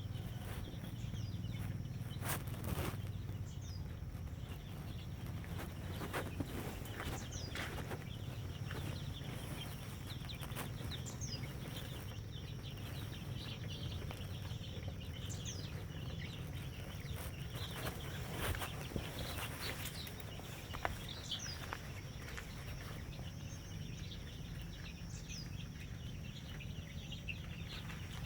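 Birds giving short, high, falling chirps every second or two over a thin steady high tone, with scattered light knocks and clicks.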